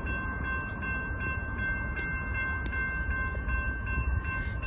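Railroad crossing warning bell ringing in rapid, evenly repeated rings with the crossing active, the sign of an approaching train, over a low rumble.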